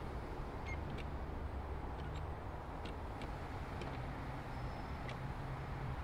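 Steady low hum of distant city traffic, with faint, scattered light ticks over it.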